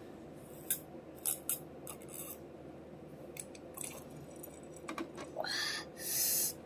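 A person drinking iced tea from a glass mug: a few sharp clicks and gulps in the first half, then a louder breathy hiss about six seconds in.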